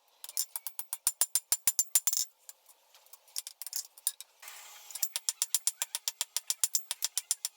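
Rapid, sharp metal-on-metal hammer blows as hot steel bar stock is forged into a taper on an anvil, several strikes a second, with a brief hiss a little past halfway.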